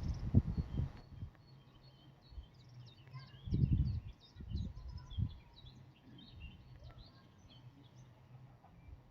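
Small birds chirping in many short, quick calls. Low thumps and rumbles come in the first second and again around the middle, and are the loudest thing heard.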